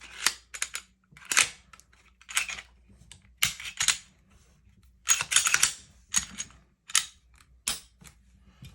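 Smith & Wesson M&P pistol being reassembled by hand: a string of sharp metal clicks with short sliding scrapes as parts are fitted and snap into place.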